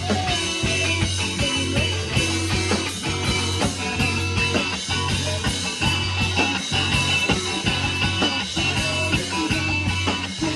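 Rock band playing live: electric guitar over a heavy bass line and a steady drum beat.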